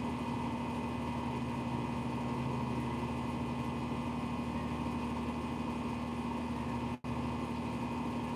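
Steady mechanical hum of a motor running, holding a few constant tones without change; it drops out for an instant about seven seconds in.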